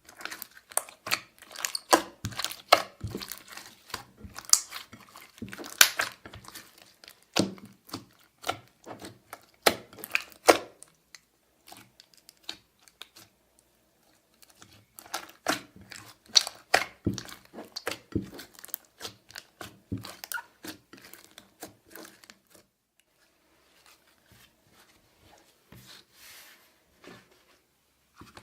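Slime being kneaded and stretched by hand, giving irregular sticky crackles and pops in two busy spells with a lull between them, then going quiet near the end.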